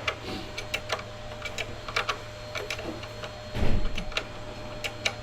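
Irregular small clicks and taps of tools and small parts being handled during wheelchair repair work, with one louder low thump about three and a half seconds in.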